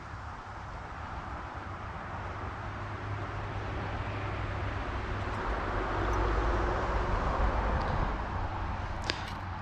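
A vehicle driving past, its noise and low rumble swelling to a peak a few seconds in and then fading. A couple of sharp clicks near the end.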